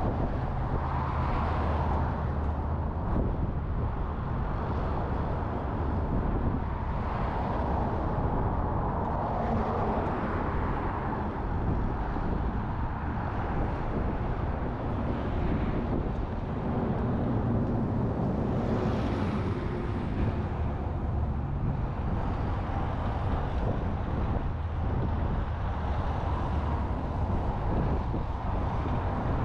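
Strong gusting wind on the microphone: a continuous rushing, rumbling noise that swells and eases.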